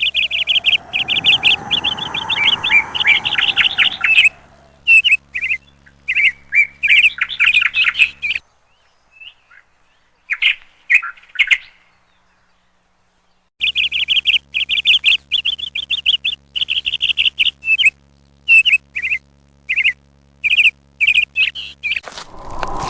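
Birds chirping in quick runs of short, high notes, with a low gliding tone beneath them for the first few seconds. The chirping drops away for about five seconds in the middle, leaving only a few faint chirps, then resumes.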